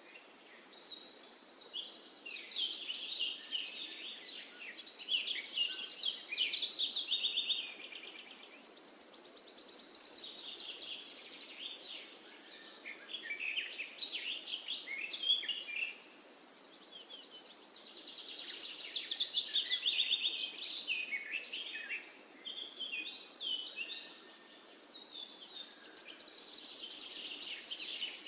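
Woodland songbirds singing in a dense chorus of quick chirps and trills that swell and fade every few seconds, over a faint steady hiss.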